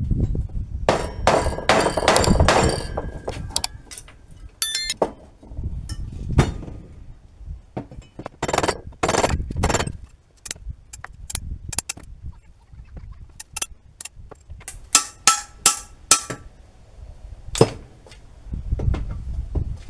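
Irregular metal-on-metal strikes, as a hammer working a steel part: sharp knocks, some leaving a short metallic ring, with a quick run of ringing blows near the end.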